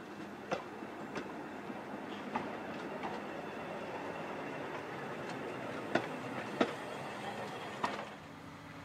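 Narrow-gauge steam locomotive No 4 Palmerston and its carriages rolling slowly past, with a steady rumble and irregular sharp clanks and clicks from the wheels and running gear. The sound drops away abruptly shortly before the end.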